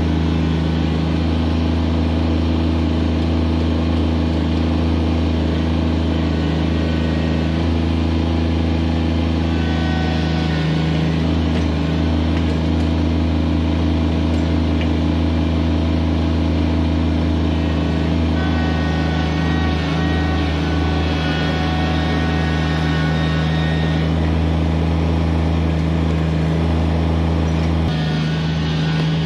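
Kubota BX23S subcompact tractor's three-cylinder diesel running steadily while the tractor works its backhoe and moves around, with a faint higher whine coming and going over the engine. The engine note shifts near the end.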